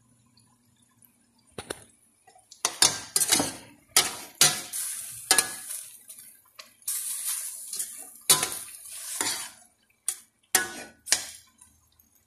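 A metal spoon stirring and scraping pieces of chicken, liver and hotdog in a stainless steel pot, clinking irregularly against the pot, with the meat sizzling as it sautés. The clanking starts about a second and a half in and stops just before the end.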